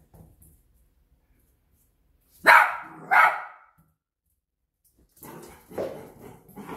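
Bedlington terrier puppy barking: two loud, sharp barks about two and a half and three seconds in, then a string of quieter, lower barks and grumbles over the last couple of seconds.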